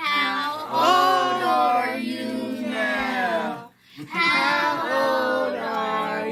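Children and women singing a birthday song together in long, drawn-out notes, with a short break a little past halfway.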